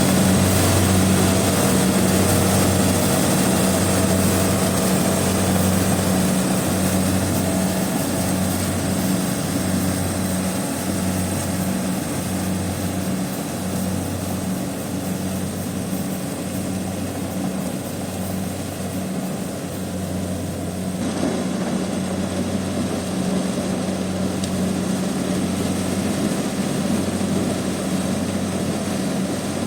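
Kubota DC70 rice combine harvester running steadily at work, its diesel engine giving a low droning hum that pulses slowly. The higher hiss over it drops a little about two-thirds of the way through.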